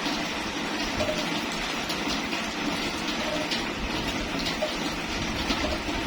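Steady rain falling, with many individual drops pattering through an even hiss.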